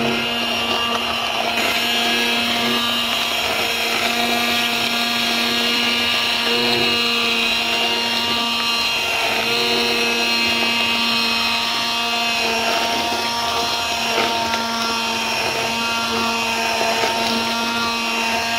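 Electric immersion (stick) blender running steadily at one speed, its blade head submerged and blending thin tamarind chutney in a steel pot, with a steady motor whine.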